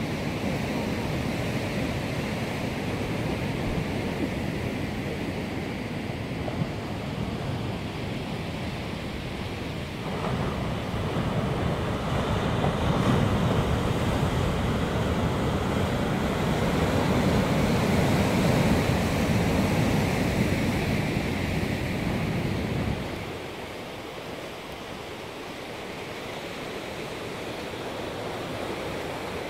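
Sea surf breaking and washing over rock ledges at the foot of a cliff, a continuous rushing wash with wind rumbling on the microphone. It grows louder about a third of the way in, and the deep rumble drops away suddenly about three quarters of the way through.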